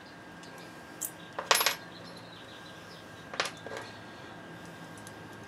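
Small metal tool or screw clattering down onto a wooden workbench. A light click comes about a second in, the louder clatter about a second and a half in, and a shorter clink about three and a half seconds in.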